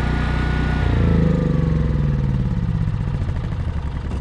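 Briggs & Stratton Q6500 inverter generator engine running steadily, then about a second in its pitch falls and its firing breaks into separate beats that keep slowing as the engine winds down.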